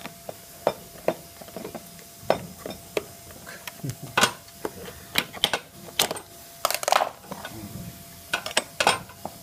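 Irregular metallic clinks, taps and knocks of hand tools: open-end spanners and needle-nose pliers being picked up, knocked together and worked against a toy-car wheel's hub and axle nut. The strikes come every half second or so, a few with a short ring, with a cluster of louder clinks around the middle and near the end.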